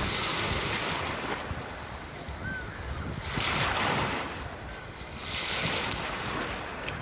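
Sea waves washing onto the shore, the surf swelling and fading three times, with a low rumble of wind on the microphone.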